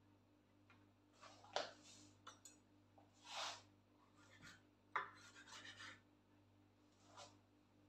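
Kitchen knife cutting cabbage leaves on a wooden cutting board: a handful of short scraping strokes, with the leaves rustling.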